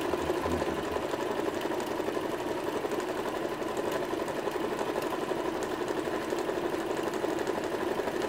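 Brother XL-4010 domestic sewing machine running at a steady speed, stitching a half-moon decorative pattern through fabric. It is the test run of the repaired machine, whose broken bobbin winder jammed it, and it now runs normally.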